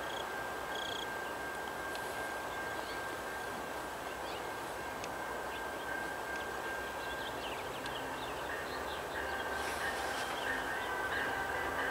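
Approaching Amtrak Piedmont passenger train led by an EMD F59 diesel locomotive, its sound a steady rumble that grows louder near the end, over a steady high tone, with faint bird chirps.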